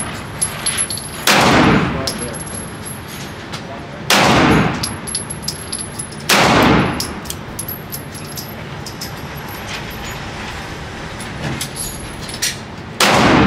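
Four single gunshots, a few seconds apart, each ringing out for about half a second, the last near the end. Fainter sharp clicks and knocks come between them.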